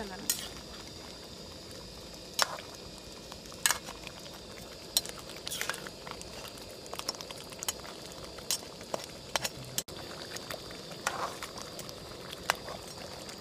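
Thick crab curry bubbling in a metal pan on a portable gas burner, stirred with a ladle. Scattered sharp pops and clicks stand out over a steady simmering hiss.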